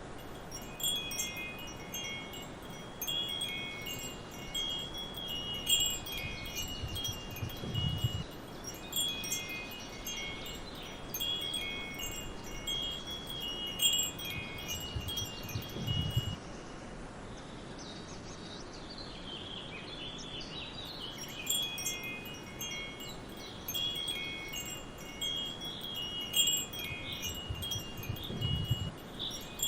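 Wind chimes tinkling, several clear high notes struck at random and ringing on, falling quiet for a few seconds past the middle. Under them is a faint steady hiss of forest ambience, with three soft low swells.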